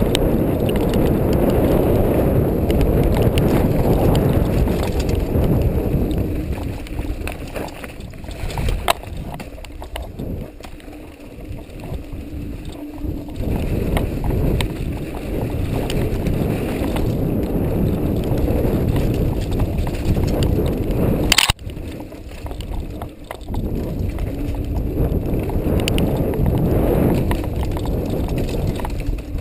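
Mountain bike riding over a rough dirt trail, heard through a camera mounted on the bike: a continuous jolting rumble with rattles and clicks from the frame and wheels, easing off for a few seconds in the middle. A single sharp knock stands out about two thirds of the way through.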